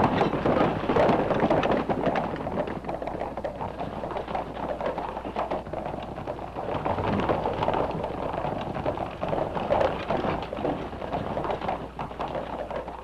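Hoofbeats of a troop of cavalry horses on the move: a dense, continuous clatter of many hooves, easing off a little near the end.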